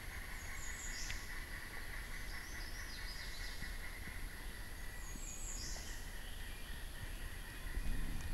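Outdoor ambience: a steady insect drone with a bird giving three short, high, falling calls, and an occasional single faint click.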